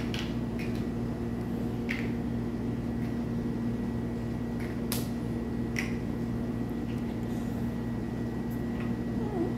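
Chunky plastic building blocks clicking as they are pressed onto a stacked tower: a handful of short, sharp clicks a second or so apart, the loudest about halfway through, over a steady low hum.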